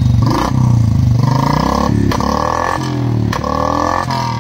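Royal Enfield Thunderbird 350X's single-cylinder engine being revved over and over through an aftermarket bottle-type silencer. The exhaust note rises and falls about once a second.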